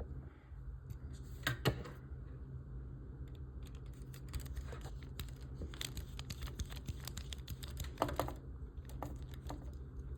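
Small clicks and ticks of a screwdriver turning a tiny screw in a plastic model part, the screw not catching in its hole. A couple of louder clicks come about a second and a half in and again near eight seconds.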